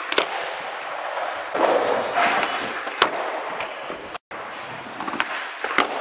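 Skateboard wheels rolling on the skatepark floor, broken by sharp clacks of the board hitting the ground. The loudest crack comes about three seconds in, as the skater bails and the board shoots away. After a short break there is more rolling, with a couple of clacks near the end.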